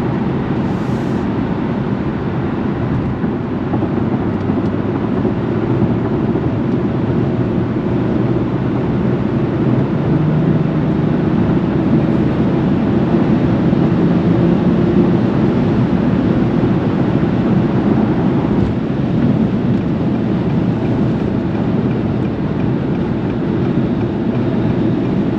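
A car driving, with steady engine and road noise that grows a little louder midway.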